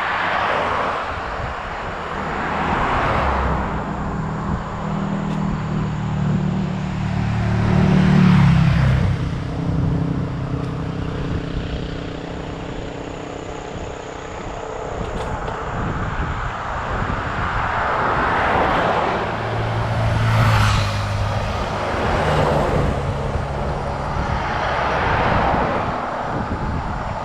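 Motor vehicles passing on the road: the tyre rush and low engine hum swell and fade several times, loudest about a third of the way in and again about three quarters through.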